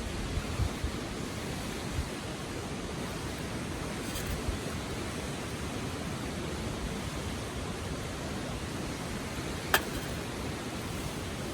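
Steady rushing of a river flowing over stones, with a few soft low thumps in the first few seconds and one sharp click near the end.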